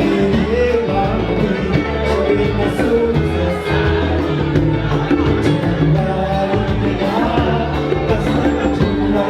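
Band music with a singing voice over a pulsing bass line.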